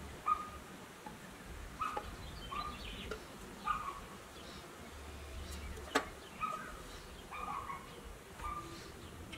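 Pressed-steel toy camper shell being handled and fitted together, with light taps and one sharp metal click about six seconds in. Short chirp-like notes repeat every second or so behind it.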